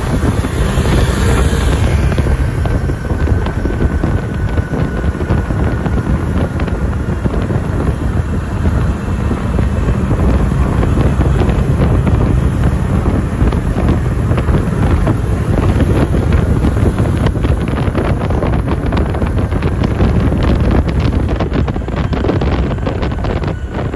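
Wind buffeting the microphone over the steady low rumble of a moving vehicle; no air horn sounds.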